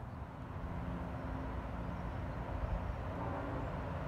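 Steady distant rumble of heavy engines with a faint low hum running through it and no sudden sounds.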